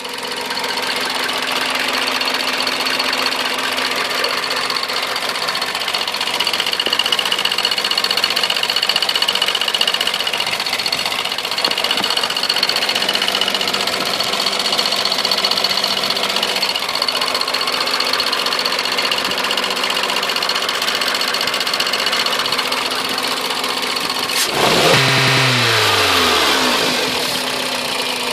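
Toyota 1ZZ-FE four-cylinder engine idling with a knock that has newly appeared. Near the end it is revved once and its speed falls back over a couple of seconds.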